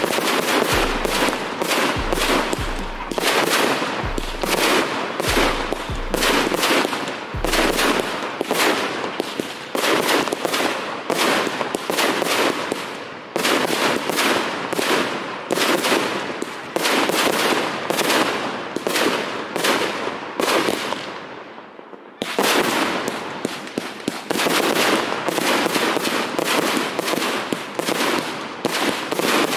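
Fireworks display: a continuous, rapid barrage of shell bursts and crackling reports, several bangs a second. It eases briefly about three quarters of the way through, then comes back just as dense.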